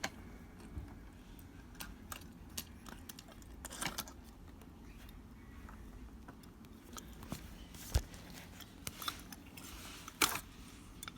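Light scattered clicks and clatter of small plastic toy pieces being handled, with a sharper knock about eight seconds in and another a little after ten.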